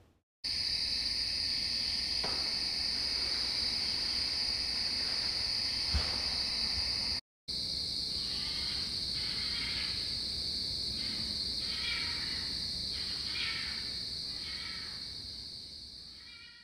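Night insect chorus: crickets trilling in a steady high-pitched drone. After a brief break about halfway, a second insect joins with rhythmic rasping calls, roughly four every three seconds.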